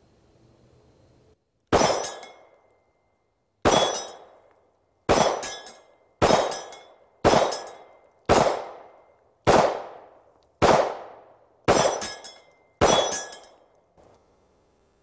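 Ruger MAX-9 9mm pistol firing about ten shots, roughly one a second, each hit on the steel target ringing briefly as a metallic clang.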